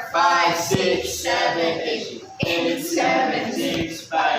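Several voices singing together, with two brief thumps.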